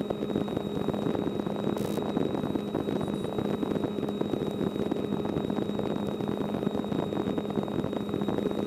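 A light aircraft's engine and propeller drone steadily in flight, heard inside the cockpit as a constant low hum under a wash of air noise, with a thin steady high whine over it.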